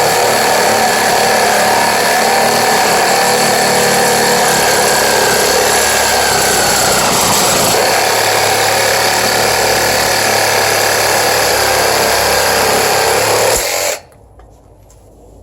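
Mereced 20V cordless reciprocating saw with a brushed motor, running steadily as its general-purpose blade cuts through a 2x3 piece of wood. The pitch sags briefly midway, and the saw stops abruptly about 14 seconds in.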